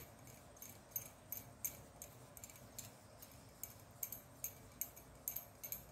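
Faint, light clinking ticks, a few a second and unevenly spaced, from hands winding woolen yarn round the fingers.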